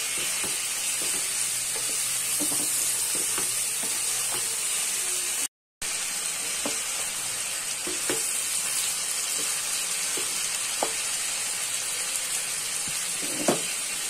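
Potato sticks and cauliflower florets frying in oil in a pan with a steady sizzle, stirred with a wooden spatula that scrapes and knocks against the pan now and then. The sound cuts out briefly about five and a half seconds in, and a louder knock comes near the end.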